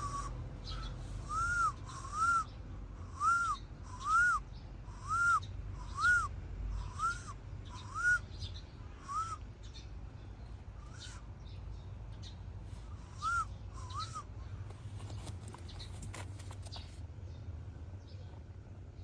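A cat meowing in a series of short, high calls, about one a second, each rising then falling in pitch. The calls stop about halfway through, and two more come a few seconds later.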